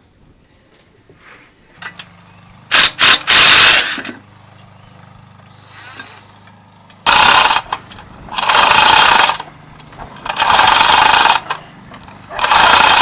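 A power tool run in repeated loud bursts of about a second each, five or so times, over a steady low hum.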